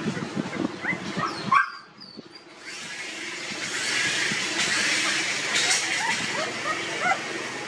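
17-day-old puppies squeaking and whimpering while they nurse: many short, rising squeaks, with a brief lull a little under two seconds in.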